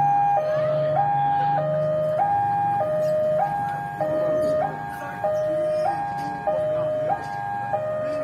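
Two-tone electronic warning siren, alternating steadily between a high and a low note about every half second.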